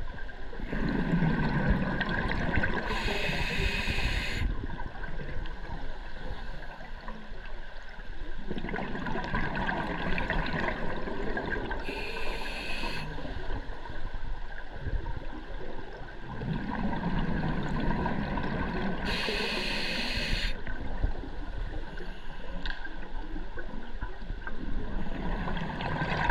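Water sloshing and gurgling, swelling about every eight seconds. Three of the swells carry a short hiss near their peak.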